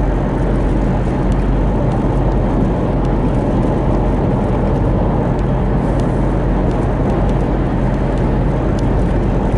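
Steady road and engine noise inside a moving car's cabin, with a constant low drone underneath.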